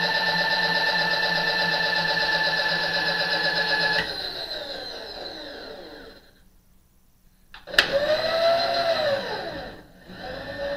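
RF-31 mill/drill's spindle motor running with a steady whine, then switched off about four seconds in and winding down almost to quiet. A sharp click near eight seconds and it starts again, spinning back up, with a brief dip just before the end.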